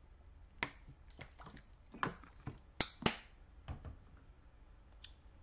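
Scattered faint clicks and taps, about a dozen at irregular intervals and none rhythmic, over a low background hum.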